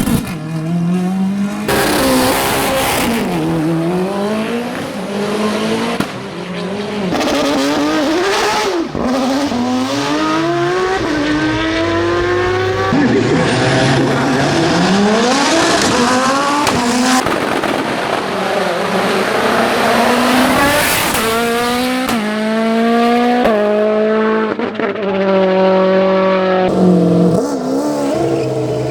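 Hillclimb race car engines at full throttle, climbing in pitch through the gears with quick upshifts and dropping back when they lift off, in several separate runs cut together one after another.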